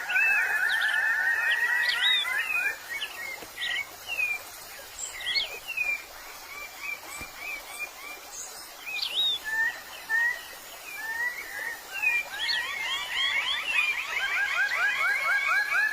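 Birds singing and calling: a fast trill of rapidly repeated short notes at the start and again near the end, with scattered short chirps in between.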